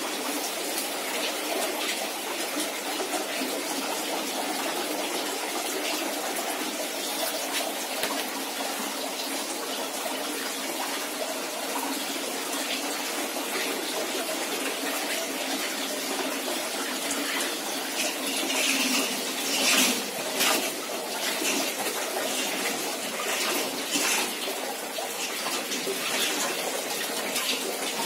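Water running steadily, with a few louder splashy surges about two-thirds of the way through.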